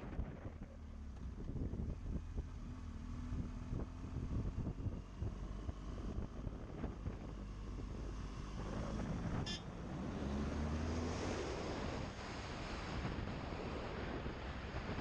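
Wind rushing over the microphone with the low hum of an adventure motorcycle's engine at riding speed. The engine note rises as the bike accelerates about ten seconds in, with a single brief click just before.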